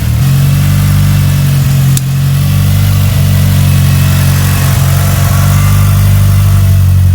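Freshly built 2.3-litre 4G63 stroker inline-four engine running steadily on one of its first runs, its pitch stepping up slightly just after the start and dipping briefly about two seconds in.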